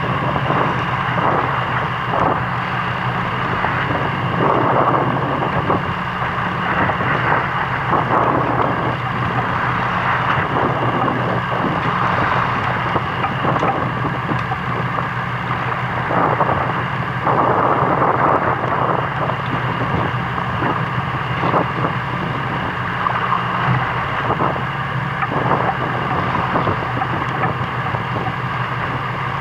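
A boat's engine running steadily with a low hum, while wind gusts buffet the microphone in irregular rushes.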